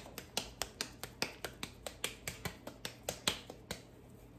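Soft, moist arepa corn dough patted and slapped between wet palms as it is shaped into a ball: quick, regular slaps about five a second, stopping shortly before the end.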